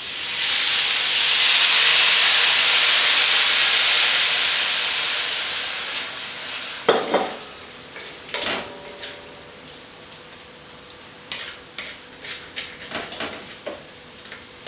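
Liquid stir-fry sauce poured into a hot pan of onions, hissing and sizzling loudly, then dying down over several seconds. After that, a spatula knocks and scrapes against the pan as the vegetables are stirred.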